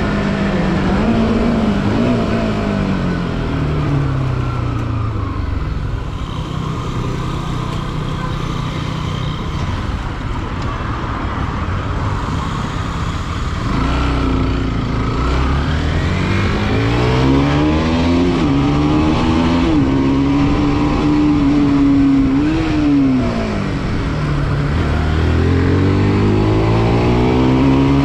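Bajaj Pulsar NS200's single-cylinder engine under way: revs fall in the first few seconds, settle low, then climb again from about halfway with several quick dips as gears are shifted, fall back near the end and rise once more, over a steady rush of wind and road noise.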